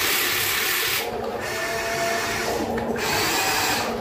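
Small electric motors and plastic gearboxes of a Huina radio-controlled excavator whirring and grinding in spurts as the boom is raised, with two brief pauses.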